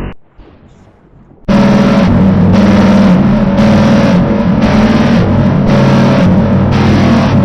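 A loud, steady engine-like drone starts suddenly about a second and a half in, with a hiss on top that pulses about twice a second.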